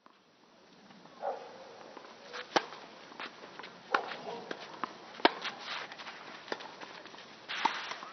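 Tennis rally: sharp pops of racket strings striking the ball and the ball bouncing, a little over a second apart, with footsteps and shoe scuffs on the court between the shots.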